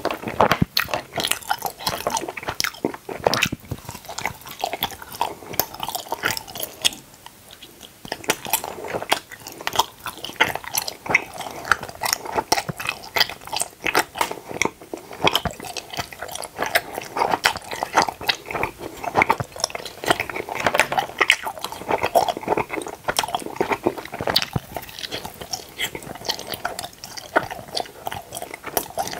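Close-miked chewing of teeth-shaped gummy jelly candies: a dense run of small mouth clicks as the jaws work the chewy gummies, easing off briefly about seven seconds in.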